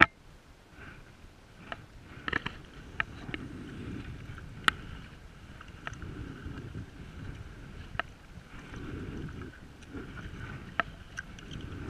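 Sea kayak paddle strokes: the blades swish through calm sea water every few seconds, with water dripping off them and a few sharp clicks in between.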